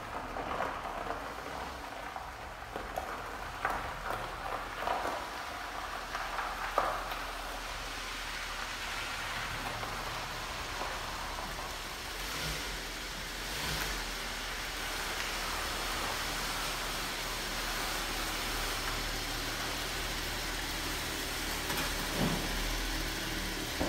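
Steady rain falling, an even hiss with a low hum underneath and a few light knocks in the first several seconds.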